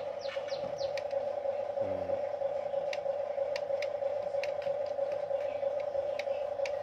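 Huina remote-control toy excavator's electric motors whining steadily as it moves, with scattered sharp plastic clicks and clacks from the toy.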